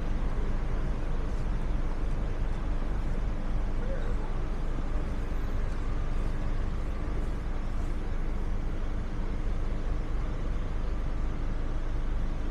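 Steady city street traffic, engines and tyres running without a break, with passers-by's voices faintly mixed in.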